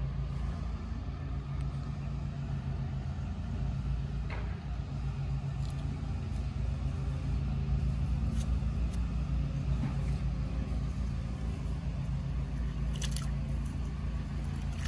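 An engine idling steadily with a low, even hum, and a few light knocks and clicks now and then.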